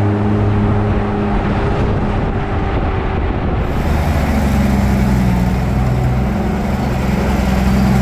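Off-road jeep's engine running while driving, heard from inside the cabin, with a steady hum and rumble. About halfway through, the engine note changes as the revs shift.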